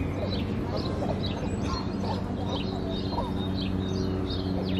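Mallard ducklings peeping: short high calls repeating about two to three times a second, over a steady low hum.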